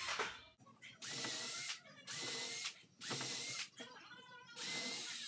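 Cordless drill/driver run in short stop-start bursts against the plywood cabinet frame, about six pulses under a second each, the motor whining up at the start of each one, as when driving screws home.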